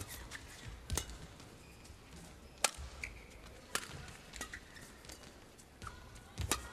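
Badminton rally: rackets striking the shuttlecock in sharp cracks about a second apart, with short squeaks of court shoes on the floor in between.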